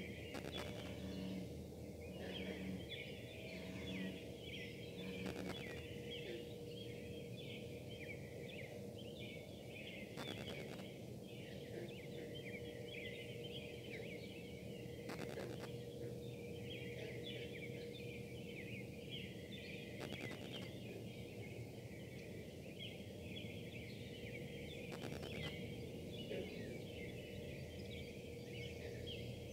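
Foundry running: a steady buzzing hum with a held tone, and a dense, wavering high-pitched warble above it that sounds like a tornado siren. Brief clicks of wifi interference break in about every five seconds.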